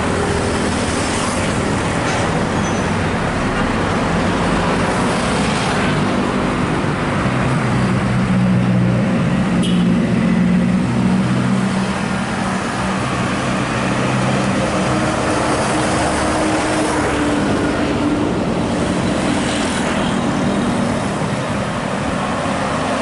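Road traffic with buses going by: a steady wash of tyre and engine noise, with a heavy engine's low drone swelling to its loudest in the middle and another passing later.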